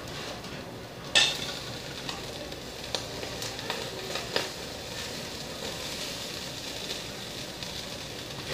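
Skewered barbecue meat grilling over an open fire, sizzling and crackling steadily. There is a sharp clack about a second in and a few lighter clicks after it.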